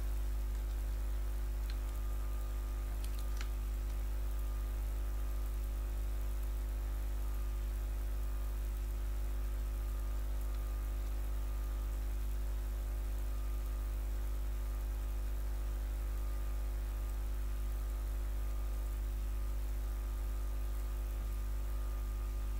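Steady low electrical hum with an even hiss, with a few faint clicks in the first few seconds.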